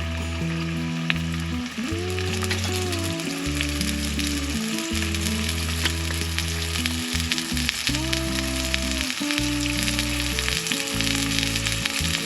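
A big slice of ham sizzling in hot grease in a pan, with a steady crackle. Background music with sustained, slowly changing chords plays underneath.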